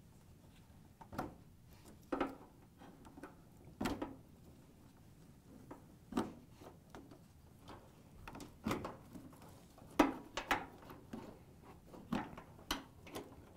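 Plastic wire-harness connectors being unplugged from an LG dryer's control board: irregular small clicks and knocks of plastic against plastic and sheet metal as the release tabs are pressed and the plugs pulled off.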